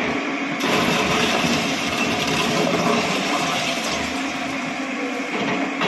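Bulldozer at work on a demolition, its engine and working noise making a steady, dense din.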